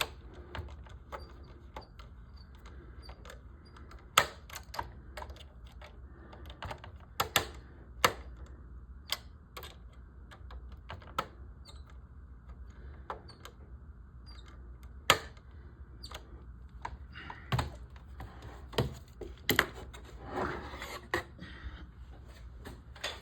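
Irregular sharp clicks and taps of small plastic model-kit parts being handled and fitted together, with a few louder knocks, over a faint steady low hum.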